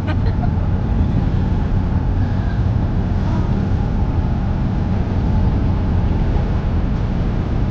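An old pickup truck's engine and road noise make a steady low rumble, heard from inside the cab while driving.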